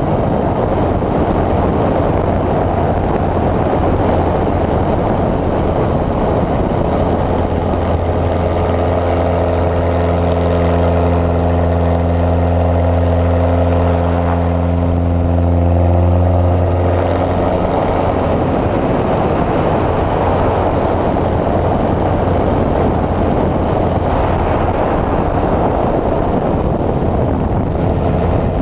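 Pitts S-1S aerobatic biplane's engine and propeller running in flight: a dense rush over a low drone. From about eight seconds in, the engine note comes through as a steady hum with clear overtones, then sinks back into the rush about nine seconds later.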